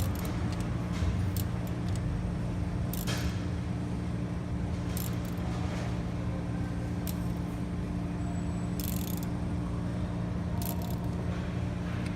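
A few light metallic clicks and ticks from a thread tap and its handle being turned by hand in a stripped bolt hole, over a steady low hum.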